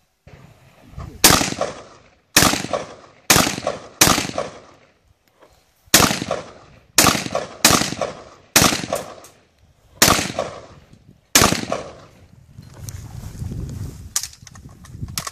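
AK-pattern rifle firing about eleven single shots at an unhurried pace, roughly one a second with a short break after the fourth. Each crack trails off in a brief echo.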